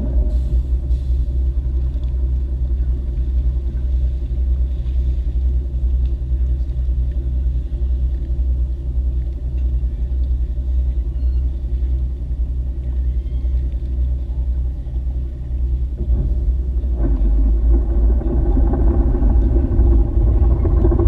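Tour boat's engine running steadily with a low rumble as the boat moves through the harbour. About seventeen seconds in the engine grows louder and fuller.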